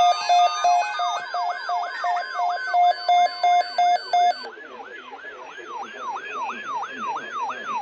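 Electronic alert sound: a repeated beep of about three a second layered over fast siren-like yelping sweeps. The beeps stop about four seconds in and the siren sweeps carry on alone.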